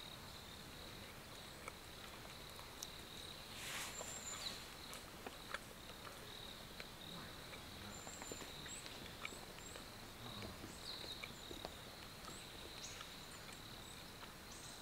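Faint forest ambience: a steady high insect trill, with a few short high chirps in the second half and a brief rustle about four seconds in.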